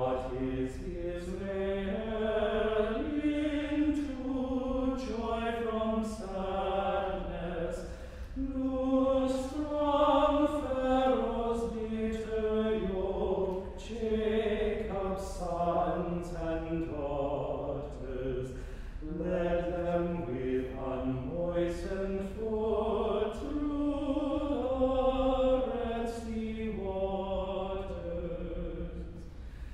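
Small unaccompanied men's choir singing the Compline office in chant, the voices holding long notes and moving together from note to note.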